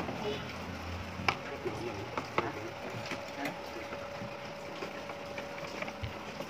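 Metal fork and spoon clicking against a bowl several times while eating noodles.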